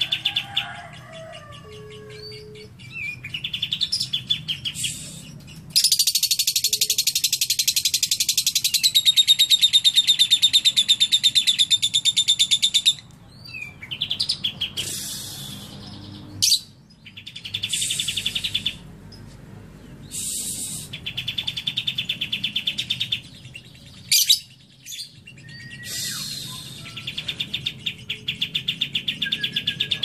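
Lovebird, trained on cililin song, singing long, rapid chattering trills (ngekek) in repeated bursts. The longest and loudest runs about seven seconds, the rest last two to three seconds each with short pauses between.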